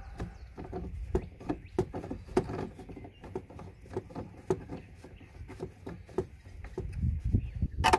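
Gasoline from a liquid transfer pump's hose gurgling into a plastic gas can: a run of small irregular splashes and clicks, several a second, with a louder knock just before the end.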